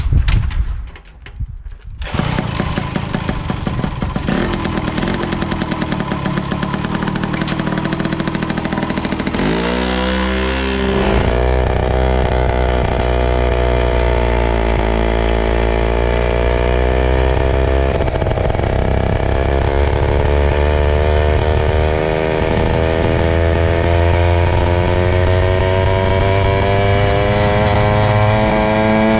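Tuned 60cc reed-valve two-stroke engine of a Jawa Babetta 207 moped with an unrestricted aftermarket pipe, running hard from about two seconds in. It revs up sharply about ten seconds in as the moped pulls away, then climbs steadily in pitch as it gains speed. With no gearbox, the engine note rises with road speed alone.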